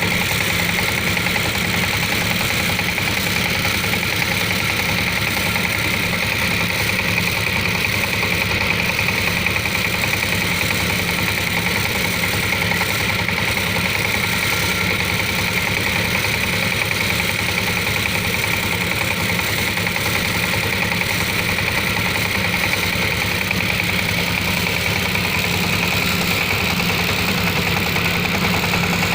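Small engine of a garden tiller running at a steady speed, without revving up or down.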